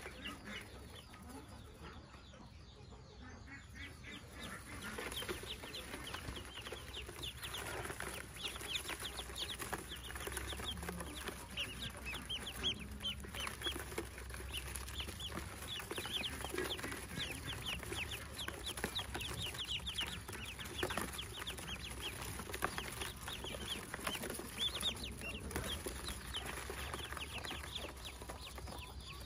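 A basketful of newly hatched Pekin ducklings peeping constantly: many short, high cheeps overlapping, sparse at first and much busier from about four seconds in.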